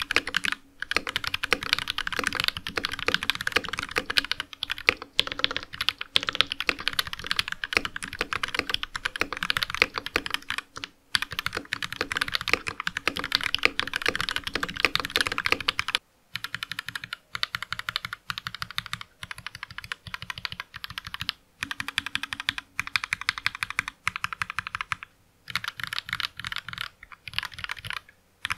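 Mechanical keyboard fitted with lubed Durock linear switches being typed on quickly, a steady run of key clacks. About sixteen seconds in there is a brief pause, and the typing resumes with a thinner, less deep sound.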